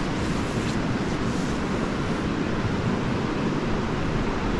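Steady low rushing noise of wind rumbling on the microphone.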